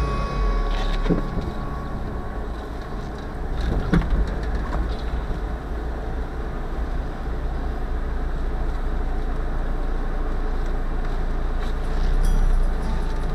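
Mazda MX-5's four-cylinder engine running steadily at low speed, with road and tyre noise as the car rolls slowly over paved village streets. Two light knocks, about a second in and about four seconds in.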